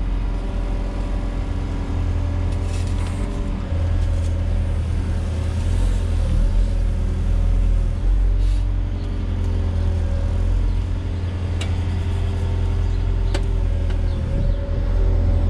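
Volvo EWR150E wheeled excavator's diesel engine running steadily with a low rumble, getting louder about four seconds in. Two faint clicks sound in the second half.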